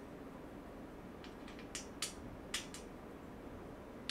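Light, sharp metal clicks and ticks from bolts being tightened into a dresser's steel frame, about seven in a quick, uneven cluster around the middle, over a steady low hum.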